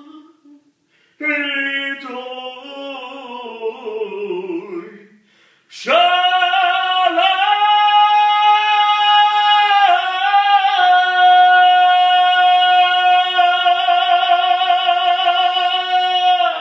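A man singing unaccompanied. A phrase slides down in pitch, then after a brief pause he holds one long high note for about ten seconds, wavering slightly near the end.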